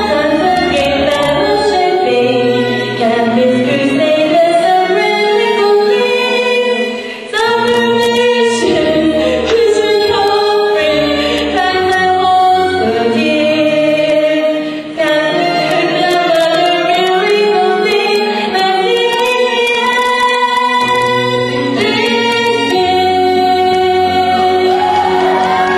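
Music: a song sung by several voices together, choir-like, with sustained sung notes over a low bass line.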